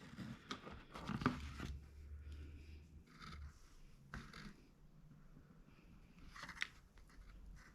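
Faint rustling and scraping handling noises with a few sharp clicks, the clearest about a second in, near four seconds and near six and a half seconds.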